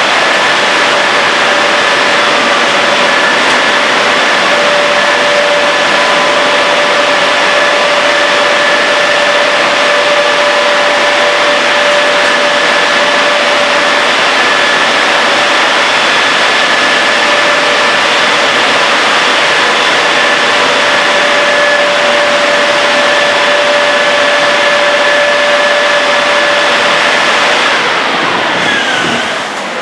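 Car wash drying blowers running steadily: a loud rush of air with a high fan whine held on several steady tones. Near the end the noise drops and the whine falls in pitch.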